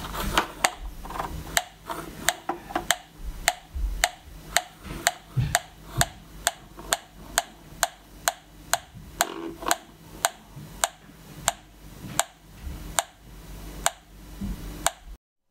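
Gas leak detector (sniffer) ticking steadily, about two clicks a second, as its gooseneck probe is passed along a skirting board; the ticking is its audible readout of gas picked up at the probe tip.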